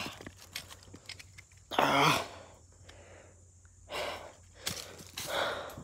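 A man's pained groan and gasping, wheezy breaths: a drawn-out groan about two seconds in, then two shorter breathy sighs. Faint crunches of footsteps on dry leaves and stones lie between them.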